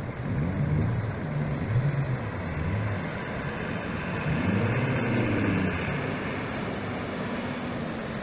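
An engine revving up and down over and over, its pitch rising and falling, over the steady wash of breaking surf and wind on the microphone.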